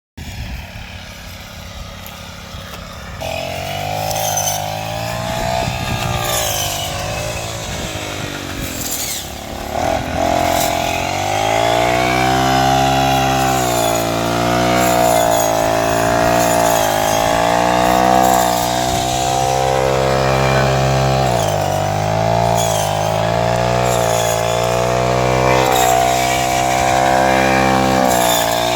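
A farm machine's engine running under load, its pitch rising and falling slowly as the load changes, with mechanical clatter over it. It becomes steadily louder from about three seconds in.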